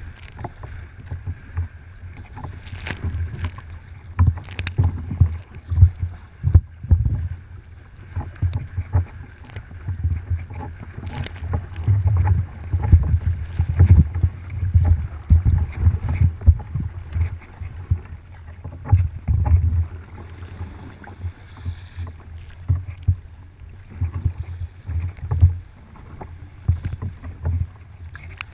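Gusty wind rumbling on the microphone, with irregular splashes and slaps of choppy water against a kayak's hull.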